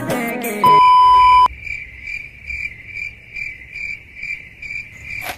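A loud steady beep lasting under a second, then a cricket-chirp sound effect, even chirps about three a second, that starts and stops abruptly.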